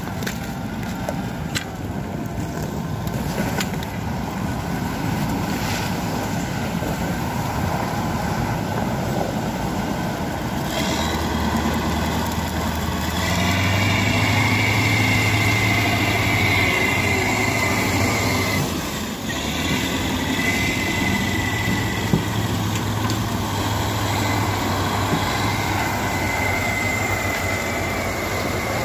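Heavy diesel engines of big wheeled tractors and a truck running as they work through overflow water on river ice. A steady wash of machine noise gains a deep engine drone about a third of the way in, and a high whine joins it. It swells louder for a few seconds, dips briefly, then carries on.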